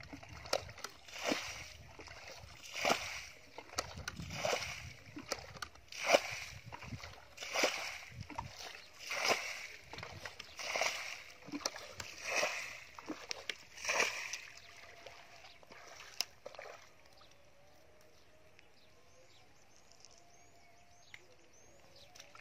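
Plastic bucket scooping muddy water from a shallow pool and flinging it out, a splash about every one and a half seconds: the pool is being bailed dry to catch the fish in the mud. The splashing stops after about fourteen seconds.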